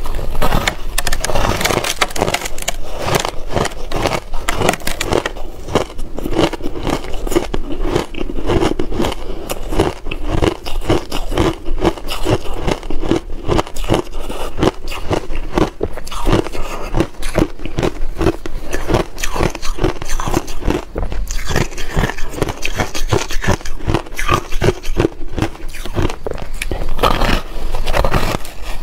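Ice crunching and crackling as a person bites and chews a block of reshaped ice coated in green matcha powder: a dense run of sharp crunches, many a second, without a break.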